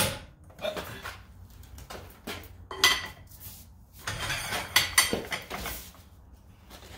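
Breaker bar and socket on a stripped lug nut, clinking and knocking as the bar is fitted and levered against the nut. The sound is a string of sharp metal clicks, thickest past the middle.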